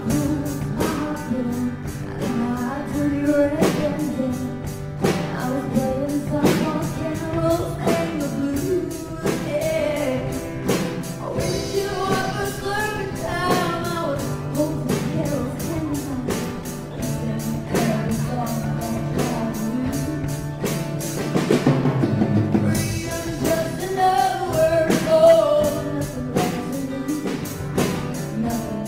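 A song with singing over instrumental accompaniment, guitar among it, and a steady beat.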